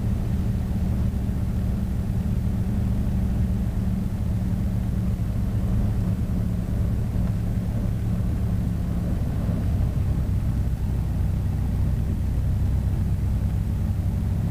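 Mooney's piston engine and propeller running steadily at low power, a constant low drone heard inside the cockpit during the landing.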